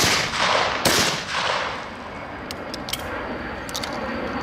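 Two gunshots at a shooting range, less than a second apart, each with a long echoing tail, followed by a few faint sharp clicks.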